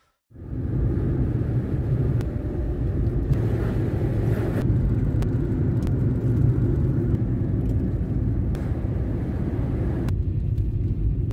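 Renault Clio heard from inside the cabin while driving: a steady low rumble of engine and tyre road noise that changes abruptly a few times.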